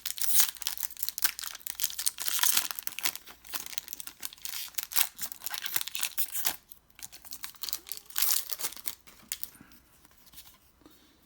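A Pokémon TCG Champion's Path booster pack's foil wrapper being torn open and crinkled in the hands, a dense run of crackles and tearing rustles that dies down to faint handling near the end.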